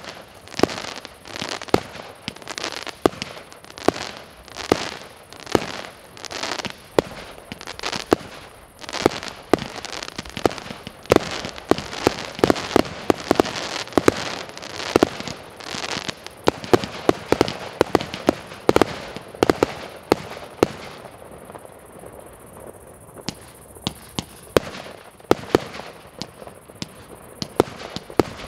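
A 25 mm compound firework battery firing shot after shot: at first about one shot a second, then a dense run of crackling shots, then sparser shots toward the end.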